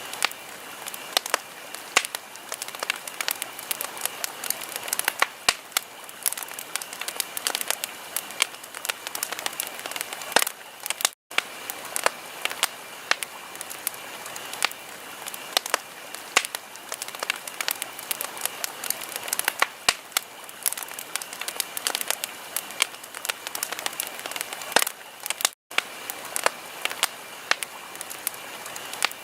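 Wood fire crackling in a fireplace: a dense run of sharp pops and snaps over a steady hiss. The sound cuts out for an instant twice, about 11 and 25 seconds in.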